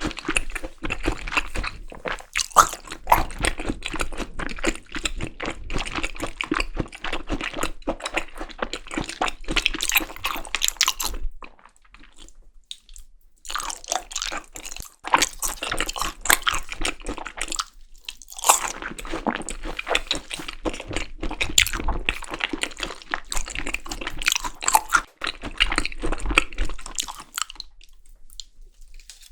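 Close-miked chewing and biting of Korean seasoned raw beef tartare (yukhoe), wet mouth sounds in dense runs of small clicks. It pauses for about two seconds near the middle and briefly again a little later.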